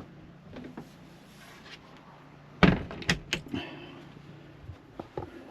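A door in a camper van's interior banging shut about halfway through, followed by a few quick knocks and rattles.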